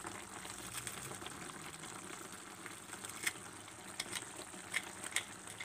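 Grated tomato sauce simmering in a frying pan, a steady bubbling, with a few sharp clicks in the second half as garlic is squeezed through a garlic press into it.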